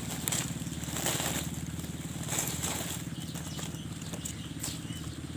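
A steady low drone made of rapid fine pulses, with a steady high hiss above it and a few light rustles of dry grass and stems.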